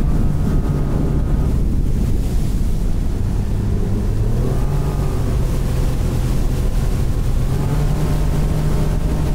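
Outboard motor of a fishing boat running at speed, a steady engine drone whose note rises slightly about four seconds in, with wind rushing over the microphone.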